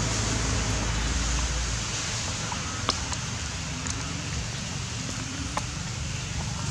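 Steady rain falling, an even hiss with a few sharp drip clicks scattered through it, over a low steady hum.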